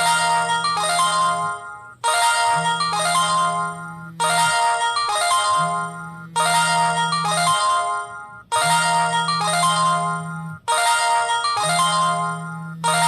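Samsung GT-E2121L mobile phone ringing for an incoming call with a downloaded musical ringtone. A short melodic phrase over a held bass note repeats about every two seconds.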